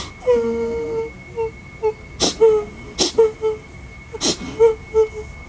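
A girl crying in heartbroken sobs. She opens with a drawn-out wail of about a second, then breaks into short, broken sobs with three sharp gasping in-breaths between them.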